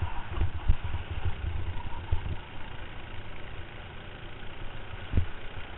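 Racing kart engine running under way, heard from a camera mounted on the kart, as a dense low rumble. Several short thumps break through it: a cluster in the first two seconds and a single one about five seconds in.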